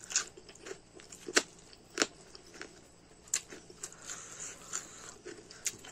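Close-up eating sounds: a man chewing a handful of rice and curry, with several sharp, wet lip smacks. Fingers squish through the food on a steel plate near the end.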